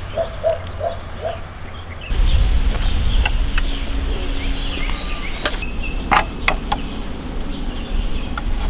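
Outdoor ambience with birds chirping: four short calls in the first second and a half, then a louder low wind rumble on the microphone from about two seconds in. A few sharp clicks near the middle come from wire hooks knocking on a bamboo drying pole.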